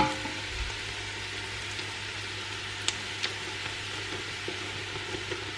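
Sliced onions frying in butter and oil in a pot, a steady sizzle, with a couple of faint ticks about three seconds in.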